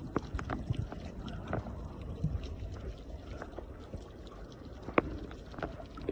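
Underwater sound picked up by a submerged camera: a muffled, low water rumble with scattered, irregular clicks and pops, one sharper click about five seconds in.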